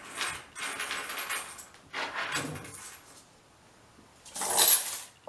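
Coins jingling and a small leather pouch rustling as they are handled, in three short bursts, the loudest near the end.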